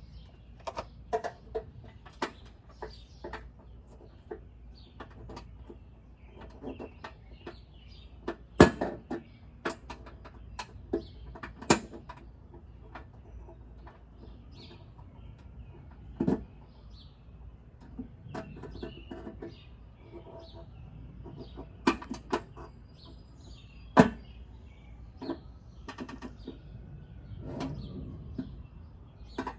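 Scattered sharp metallic clinks and knocks of hand tools and lug nuts being handled while lug nuts are taken off and put back on a car wheel. Some strikes are much louder than the rest.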